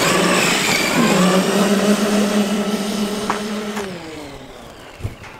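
Traxxas X-Maxx RC monster truck's brushless electric motor whining at speed as it drives off over snow on paddle tires. The whine holds a steady pitch, then drops and fades about four seconds in as the truck slows and gets farther away.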